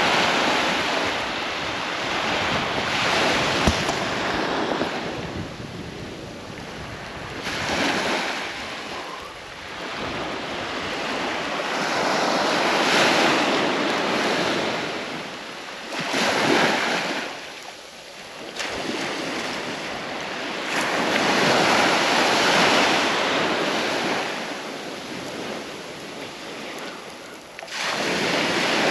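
Sea waves breaking on the beach: a surging hiss that swells and dies away every few seconds as each wave comes in.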